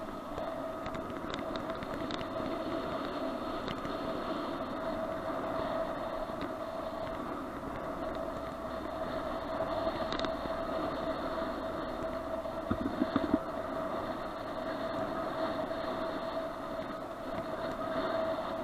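Bicycle ride heard from a helmet-mounted action camera: steady tyre-rolling and wind noise with a constant whining tone, and a brief cluster of rattling knocks about thirteen seconds in as the bike goes over a bump.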